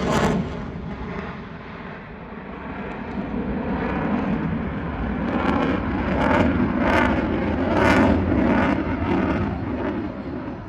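Airplane engine noise from an aircraft flying past: it fades over the first couple of seconds, swells again to a peak around six to eight seconds in, then fades toward the end.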